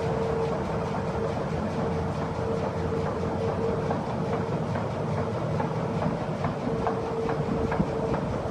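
Heidelberg Speedmaster SM 102 five-colour sheetfed offset press running: a steady mechanical clatter with one steady tone running through it.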